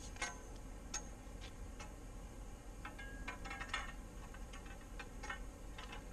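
Light metallic clicks and clinks from metal conduit and a hand conduit bender being handled, coming at irregular intervals with a quick cluster about three to four seconds in.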